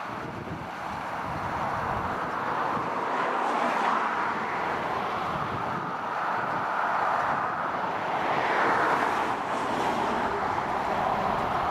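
Tractor working in a hayfield, its engine running steadily with the clatter of the implement behind it; the sound swells louder about four seconds in and again near nine seconds as the machine moves about.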